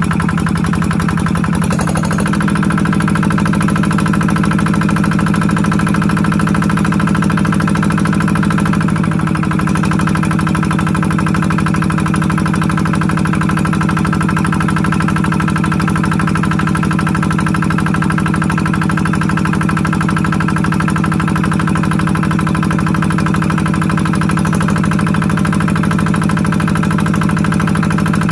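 Engine-driven water pump running steadily while pumping water into a fish pond, its pitch shifting slightly a few times.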